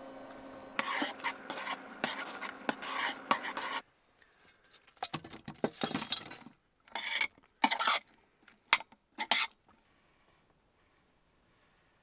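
Metal spoon stirring and scraping around a stainless saucepan of melting butter, hot sauce and brown sugar, over a steady low hum. After a cut, a run of clanks and clatter as chicken wings are tipped from an air-fryer basket into the saucepan.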